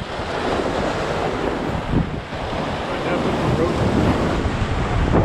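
Surf breaking and washing over jetty rocks in a steady rush, with wind buffeting the microphone in low gusts.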